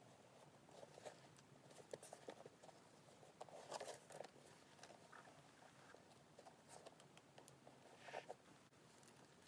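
Faint handling noises: soft rustles and light taps as a chambray-and-leather handbag is turned over in the hands, loudest about four seconds in and again near eight seconds.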